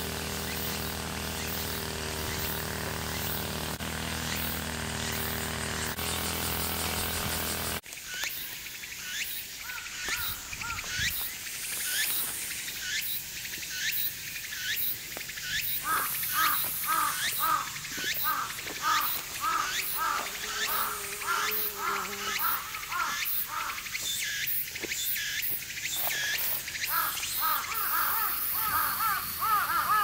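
Outdoor ambience. A steady hum for the first eight seconds breaks off suddenly, then gives way to repeated short chirping calls that grow busier from about sixteen seconds on.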